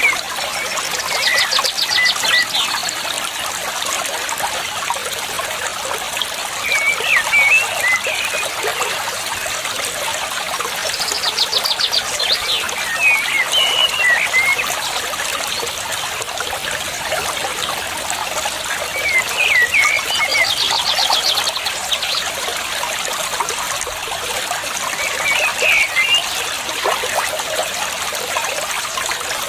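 Water trickling steadily, with a bird calling over it: a fast high trill followed by a few short chirping phrases, repeating about every nine seconds.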